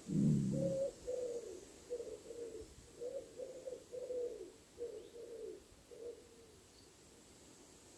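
A pigeon cooing: a run of short, low, downward-bending coos, about two or three a second, that stops about six seconds in. The run opens with a louder, deeper sound lasting under a second.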